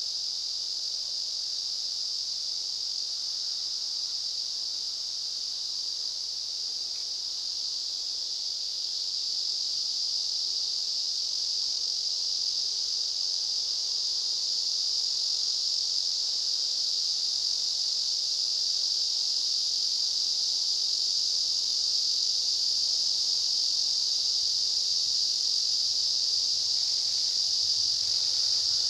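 Steady chorus of summer insects, a continuous shrill buzz.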